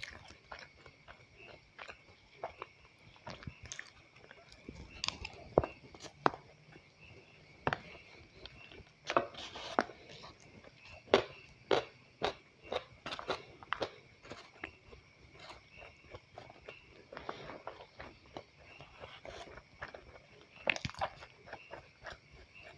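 A person eating fried rice with breaded chicken nuggets: irregular crunchy bites and chewing, a stroke every second or so, with busier stretches near the middle and near the end.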